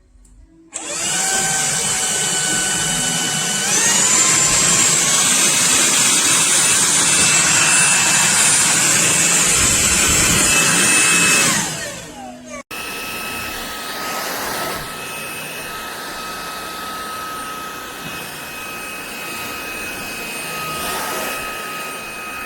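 Tineco Pure ONE S11 cordless stick vacuum running. Its motor whine starts about a second in and rises in pitch to a higher speed a few seconds later. It falls away about halfway through, and after a break it runs on more quietly and steadily.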